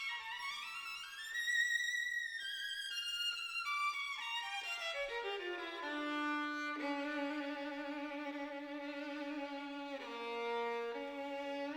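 Background music: a slow solo melody on a string instrument, high sliding notes that step down into long held low notes.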